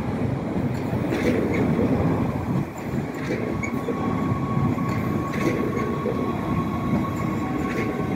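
NS Sprinter Lighttrain electric multiple unit running into the station, a steady rumble of wheels on rails with an occasional clack every couple of seconds. A thin, steady squeal from the wheels joins in about halfway as the train slows, and a second, lower squeal joins it near the end.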